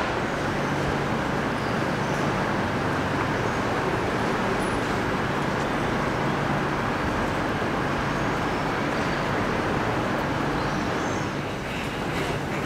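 Steady ambient noise of a large railway station concourse: an even wash of background noise over a faint low hum, with a few sharp taps near the end.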